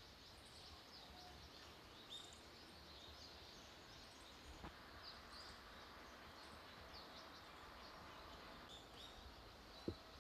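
Quiet outdoor ambience with small birds giving short, faint chirps now and then, and a single brief knock near the end.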